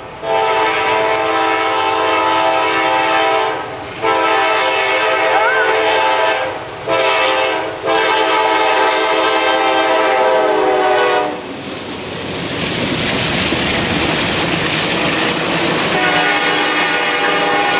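CSX freight locomotive's multi-note air horn sounding the grade-crossing signal: two long blasts, a short one and a long one. The noise of the train passing the crossing follows for a few seconds, then the horn sounds again near the end.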